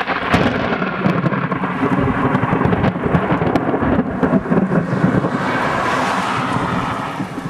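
Loud thunder rumbling for several seconds, easing off near the end.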